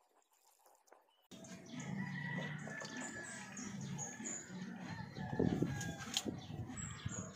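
Chickens calling in the background, with a rooster crowing among them and short high chirps of small birds. The sound starts abruptly about a second in, after near quiet.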